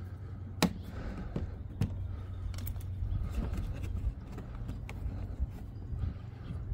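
Faint handling of a plastic push clip and the car's plastic splash shields: a few sharp clicks and light scraping as the clip is worked into the holes, over a steady low background rumble.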